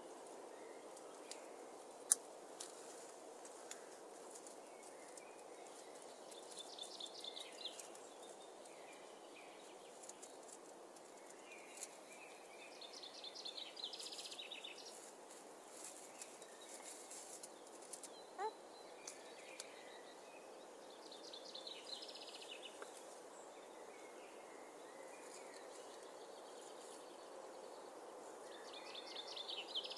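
Faint woodland background with a bird's short, rapid trill repeating about every seven or eight seconds. Scattered faint clicks and ticks, with one sharp click about two seconds in, come from an Amazon parrot gnawing wood in the branches.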